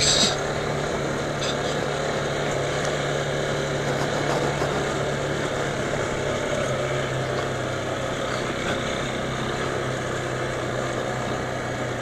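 Yamaha dual-sport motorcycle engine running steadily at low revs while the bike rolls slowly, its note dipping slightly about halfway through.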